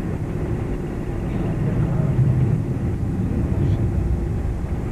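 Cabin noise inside a Boeing 747-400 on the ground after landing: a steady low rumble from the engines and airframe, with a steady hum and a slight swell about two seconds in.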